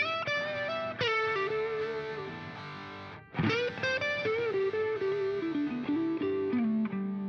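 Background music: an electric guitar playing a melody with effects and distortion, one note after another, with a brief break a little past halfway.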